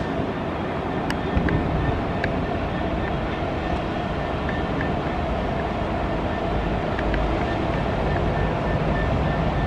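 Euro Cargo Rail diesel freight locomotive passing close with its train, a steady rumble of engine and wheels on rails, with a few sharp clicks over the rails.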